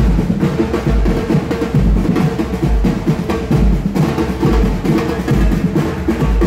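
Batucada samba percussion ensemble playing: deep surdo bass drums pound a steady beat a little under once a second under dense, fast drum strokes.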